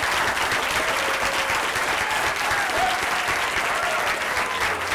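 Theatre audience applauding steadily at the curtain call, with a few faint voices calling out over the clapping.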